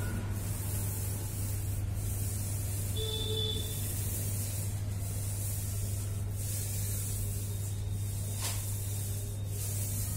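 Paint roller strokes: a rubbing hiss that swells and breaks roughly once a second, over a steady low hum. A short squeak about three seconds in.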